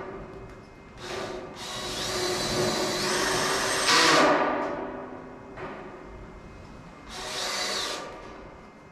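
Cordless drill driving self-tapping hex-head screws into galvanised tin sheeting, in several bursts of motor whine. The longest burst climbs in pitch partway through and is loudest just before it stops, a few seconds in. Another short burst follows near the end.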